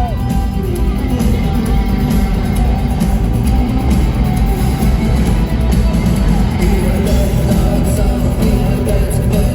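A rock band playing live at a concert, loud and bass-heavy, with guitars and a singing voice.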